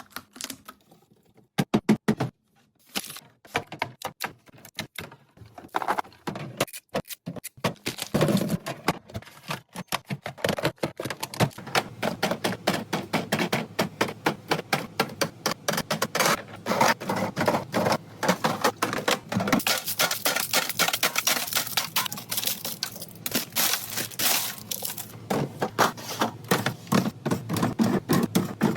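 Rapid, close-up clicks, taps and knocks of containers and packaging being handled and set in place while restocking. About twenty seconds in there is a denser, hissier stretch.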